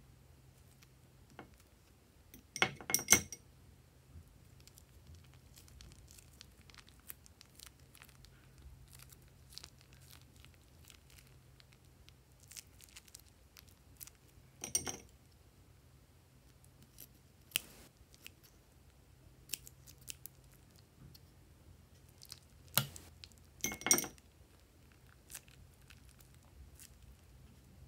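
Plastic piping bags crinkling and rustling in the hands as clear glue is squeezed out, in three loud crackly bursts (about 3 s in, midway, and twice near the end) with soft clicks and rustles between.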